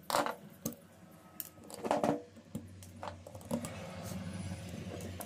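A screwdriver and fingers clicking and scraping against the plastic rear housing and brush holders of a DeWalt angle grinder, the grinder itself not running. A few sharp clicks, the loudest about two seconds in.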